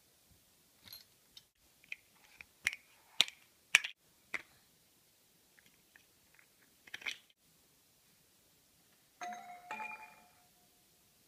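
Hard plastic toy blocks clacking in a baby's hands: a string of sharp clicks, then one more a few seconds later. About nine seconds in, a roly-poly tumbler doll's chime rings out and fades.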